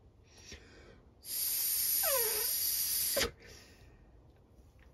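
A person blowing hard by mouth through a small passage of a Ryobi hedge cutter's carburettor for about two seconds: a rushing hiss with a brief whistle that falls in pitch midway. The air passes freely, so the passage is clear.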